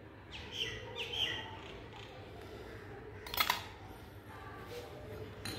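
Two short high chirps from a small bird in the first second and a half, then a sharp click of a metal spatula against the metal casting flask about three and a half seconds in, as moulding sand is cut and lifted.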